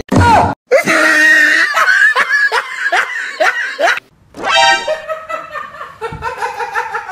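People laughing hard in a run of rapid 'ha' bursts, about two a second, breaking off briefly about four seconds in and then going on.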